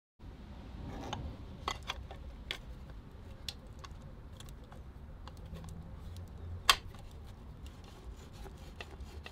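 Hands fitting a clutch release bearing on the gearbox: rubbing and scattered small clicks and taps, with one sharper click about six and a half seconds in, over a low steady hum.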